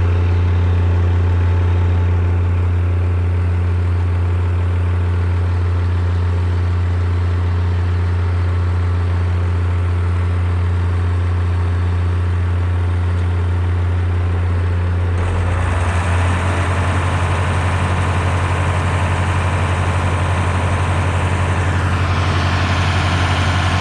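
Tractor engine running steadily with a deep, even hum. About fifteen seconds in it turns rougher, with a rapid pulsing beat.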